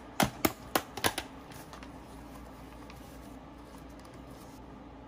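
A run of about five sharp plastic clicks and snaps in the first second or so, from the clear plastic container of paper coffee filters being opened and handled. This is followed by faint paper rustling as a filter is pressed into a ceramic pour-over dripper.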